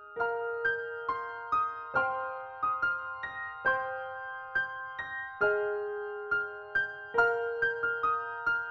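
Background music: a keyboard melody of single struck notes, about two or three a second, each ringing and fading.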